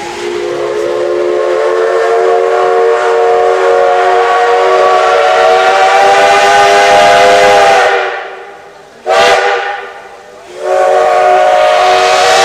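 Steam whistle of the JNR Class C62 No. 2 steam locomotive: one long blast lasting about eight seconds, a short toot about a second later, then another long blast near the end, with steam hissing underneath.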